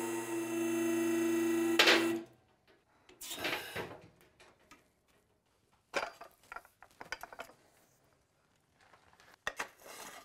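Electric hydraulic pump motor of a two-post car lift running with a steady hum as it raises a pickup, cutting off with a clunk about two seconds in. After that, scattered metal clanks and clicks as tall support stands are set and adjusted under the raised truck.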